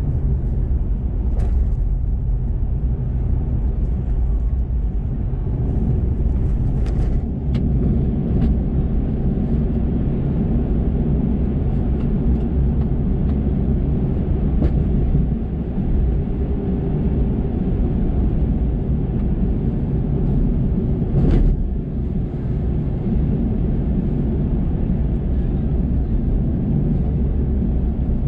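Chevrolet Colorado Z71 pickup driving on a gravel road, heard from inside the cab: a steady low rumble of engine and tyres on gravel, with a few brief sharp knocks, the loudest about three quarters of the way through.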